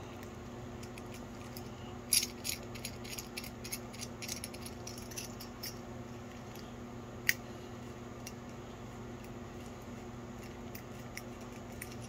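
Faint metallic clicks and ticks of a small socket driver turning a nut inside a chrome cigarette lighter assembly, clustered a couple of seconds in, with one sharper click past the middle, over a steady low hum.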